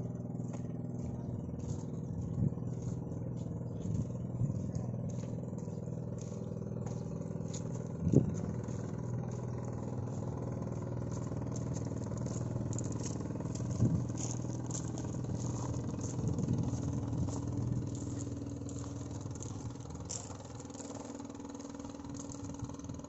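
Boat engine running steadily, with a few sharp knocks on top, the loudest about eight seconds in.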